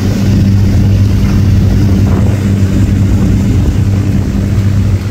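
Fishing boat's engine running steadily under way in a choppy sea, a low hum with a broad rush of wind and water over it.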